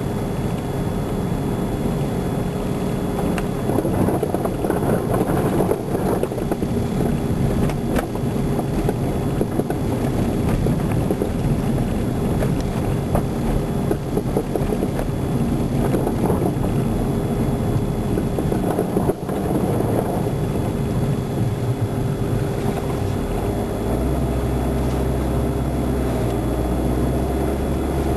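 Car driving: a continuous rumble of engine, tyres on the road and wind, turning into a steadier low hum near the end.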